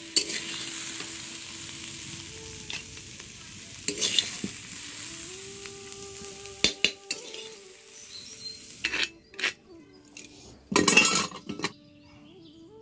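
Stir-fried amaranth leaves sizzling in a kadai, with a spatula scraping and knocking against the pan. In the second half the sizzle fades and the spatula scrapes the fry into a clay bowl, with the loudest scrape about eleven seconds in.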